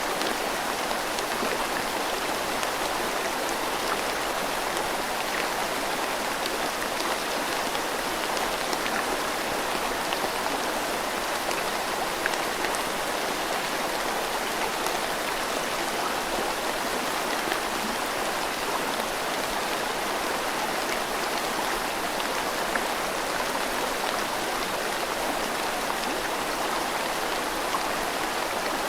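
Steady rain falling, with a flowing river beneath it: an even, unbroken rush of water, flecked with small raindrop ticks.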